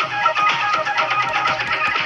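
Background music led by a plucked string instrument, such as a guitar, playing quick repeated notes.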